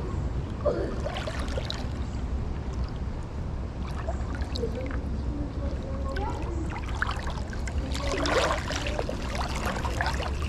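River water flowing and trickling steadily, with a low rumble and a few small splashes.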